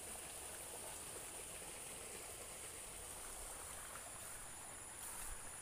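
A small stream flowing quietly, under a steady high-pitched drone of insects.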